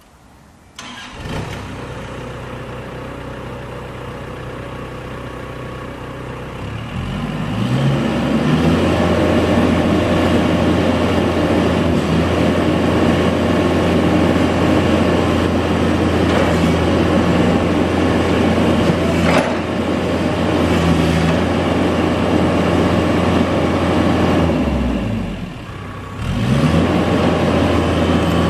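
Caterpillar 305 excavator's diesel engine starting about a second in, idling low, then throttled up to a louder, higher steady run from about seven seconds. Near the end the engine speed drops briefly and comes back up.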